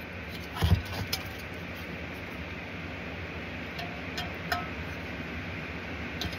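A few light metallic clinks and ticks, some briefly ringing, as a 12 mm wrench is worked on a diesel heater's glow plug to tighten it, with a dull knock under a second in. A steady low hum runs underneath.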